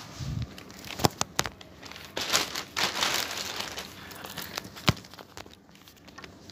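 Thin plastic bag crinkling and rustling as a cardboard box is pulled out of it, loudest in the middle, with a few sharp knocks about a second in and another near five seconds.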